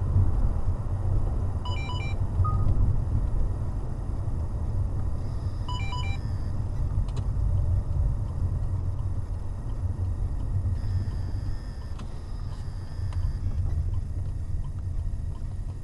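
Steady low rumble of a car's engine and road noise heard inside the cabin while driving. About 2 s and 6 s in there is a pair of short electronic beeps each time.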